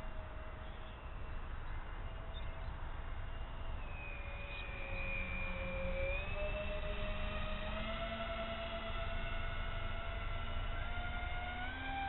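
Twin propeller motors of a radio-controlled foam flying boat whining steadily, their pitch sliding down and back up a few times as the throttle changes, over a low rumble of wind on the microphone.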